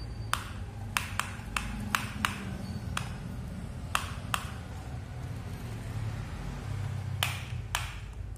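Sharp, irregular plastic clicks and taps from a toy excavator's arm and bucket being worked by hand. About a dozen clicks come in the first four and a half seconds, and two more come near the end.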